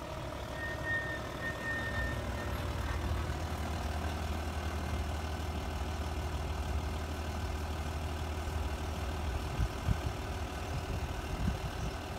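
A large engine running steadily at idle, a low even rumble, with a short thin high tone over it about half a second to two and a half seconds in.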